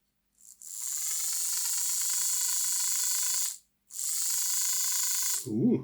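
Lima Class 55 Deltic model locomotive's motor bogie running under power in two bursts with a short pause between, giving a high-pitched whine and squeal from the freshly refitted gears.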